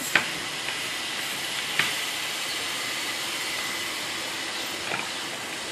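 Steady hiss of background noise, with three light knocks as a small wooden balance bike with plastic wheels is handled and bumped on a hardwood floor; the first knock, just after the start, is the loudest.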